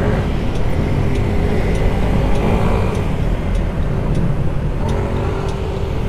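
Yamaha S-Max 155 scooter's single-cylinder engine running while riding along, under a steady, heavy wind rumble on the microphone.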